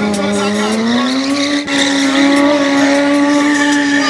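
Sport-bike engine held at high, steady revs during a stunt wheelie. Its pitch steps up about a second in and then holds.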